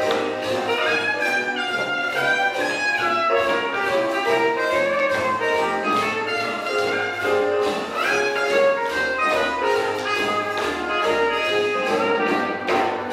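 Swing jazz music with a steady beat, played for partner dancing.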